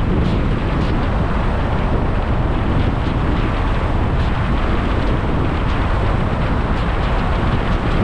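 Steady wind and road noise from a car driving at speed, with wind buffeting the microphone and a few faint ticks.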